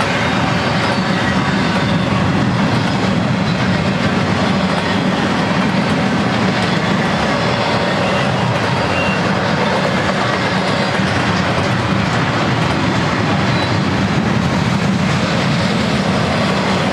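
Empty double-stack well cars of a freight train rolling past steadily, steel wheels running on the rails.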